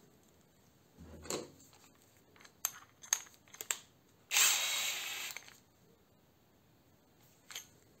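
Cordless drill's keyless chuck and a spade bit being handled: a run of sharp clicks as the bit goes into the chuck, then a louder rasping burst about four seconds in as the chuck is twisted tight, and one more click near the end.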